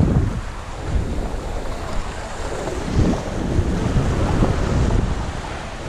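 Wind buffeting the microphone over small waves washing against the jetty's rocks, the rumble swelling about halfway through.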